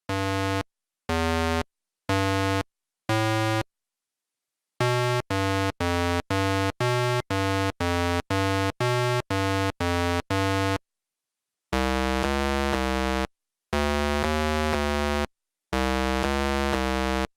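Simple synthesizer melody: four separate notes about a second apart, then a quick run of about a dozen short notes, then three longer phrases of three notes each. Each note starts and stops abruptly.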